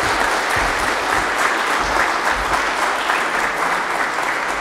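Audience applauding, an even, sustained clapping from many hands.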